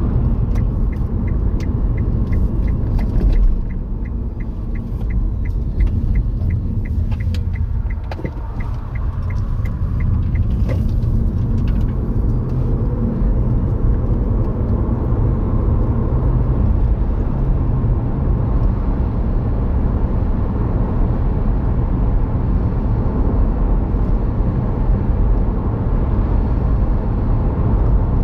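Car interior road and engine rumble while driving, with a regular light ticking, about three ticks a second, over roughly the first eleven seconds.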